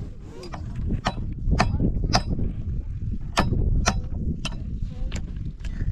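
Repeated hammer blows, about two a second, each with a short ring, with a pause of about a second in the middle.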